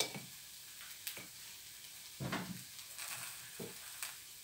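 Dosa batter frying in butter in a pan, a steady faint sizzle, with a handful of soft knocks and taps spread through it.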